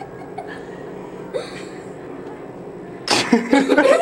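A quiet stretch with a brief breathy sound partway through, then a sudden loud burst of a person's laughter about three seconds in.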